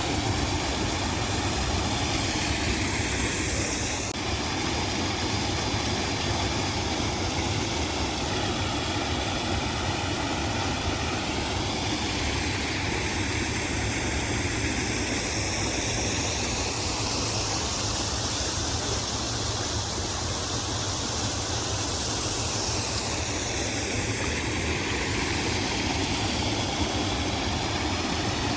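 Steady vehicle engine and running noise, with slow swells in the hiss.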